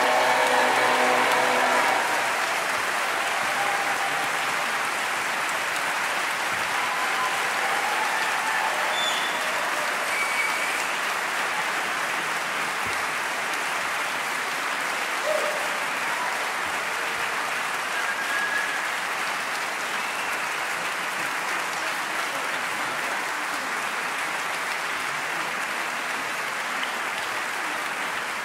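A choir's last sung chord fades out in the first couple of seconds. Steady audience applause follows, with a few brief calls heard above it.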